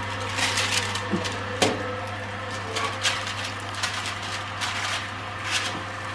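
Scattered light clicks and taps, irregular and a few per second, over a steady low electrical hum.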